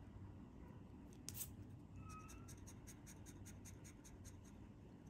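Faint scratching of a thin metal tool rubbing the coating off a lottery scratch card, in short strokes.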